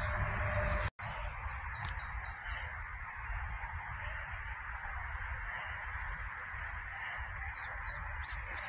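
Outdoor ambience: wind rumbling on the microphone under a steady hiss, with a few short, high bird chirps about a second in and again near the end.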